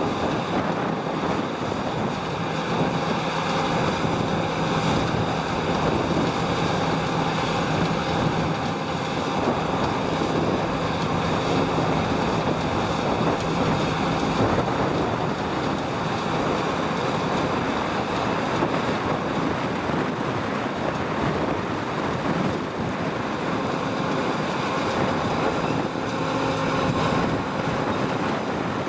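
Harvest machinery running steadily, with wind noise on the microphone.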